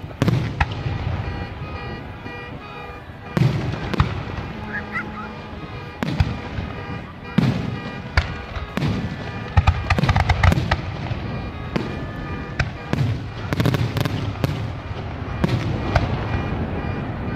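Aerial firework shells bursting overhead: a run of booms a second or two apart, with a rapid cluster about ten seconds in.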